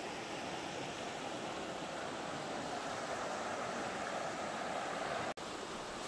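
Steady rushing of the Virgin River flowing over its rocky bed. The sound drops out for an instant about five seconds in.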